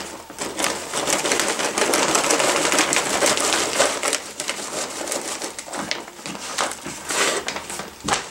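Potting mix pouring out of a plastic bag into a plastic nursery pot: a continuous gritty rustle and crackle of soil, with the bag crinkling. Louder crackles come near the end as the bag is set down.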